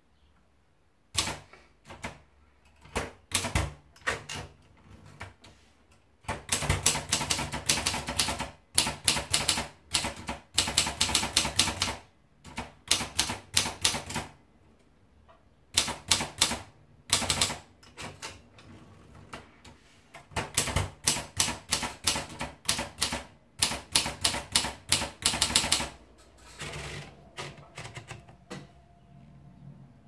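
Privileg 270T manual portable typewriter being typed on: runs of sharp key and typebar strikes in bursts of a few seconds, with short pauses between them. Near the end the strikes stop and softer mechanical sounds of the machine being handled follow.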